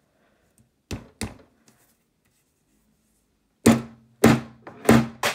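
Claw hammer striking a plastic earbud on a tabletop: two light taps about a second in, then four harder blows about half a second apart near the end, each followed by a brief low ring.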